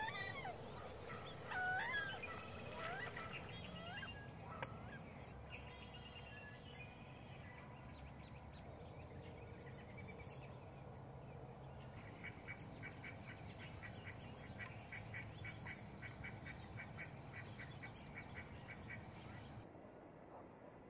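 Wood ducks calling: several rising and falling calls in the first few seconds, then a quieter stretch. From about halfway, a fast run of short repeated notes, about three to four a second, goes on for several seconds before stopping.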